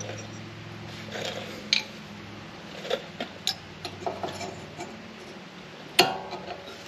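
Scattered metallic clinks and taps of brake parts and hand tools being handled during a disc brake job, with one loud ringing clank about six seconds in, over a steady low hum.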